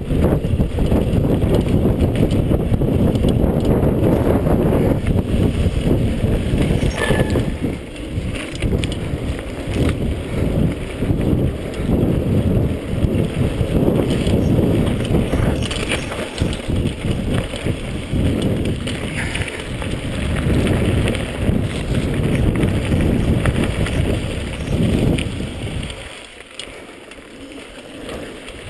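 Mountain bike descending a dirt trail at speed: wind buffeting the camera's microphone over tyres rolling on dirt, with scattered knocks and rattles from bumps. The noise drops away a couple of seconds before the end as the bike slows.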